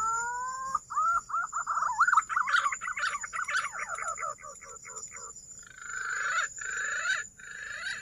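Green pigeon (punai) call imitated by mouth to lure the birds: one long rising note, then a fast run of warbling notes, then a few harsher, breathier notes near the end that cut off suddenly.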